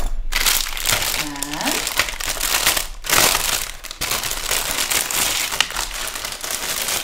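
Clear plastic packaging bag crinkling and rustling continuously as the small tools packed inside it are handled and taken out.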